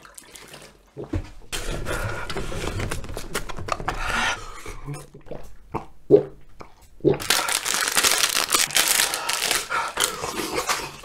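A person drinking and breathing hard, then about three seconds of loud crinkling and tearing of a plastic wrapper, as an ice cream bar is unwrapped.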